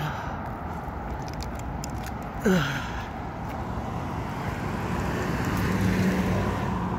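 Road traffic going by, a steady wash of cars, with one vehicle's engine growing louder near the end as it passes. A brief pitched sound is heard about two and a half seconds in.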